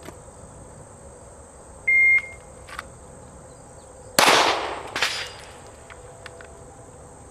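A shot timer gives one short beep, and about two seconds later a Glock 43 9mm pistol fires a single loud shot, followed by a weaker crack about a second after it. Insects drone steadily underneath.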